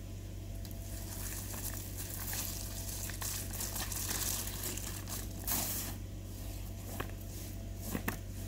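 Irregular scraping and crunching of a plastic spinner sled scooted over wet, slushy pavement and snow, over a steady hiss, with a few sharper scrapes about five and a half seconds in and near the end.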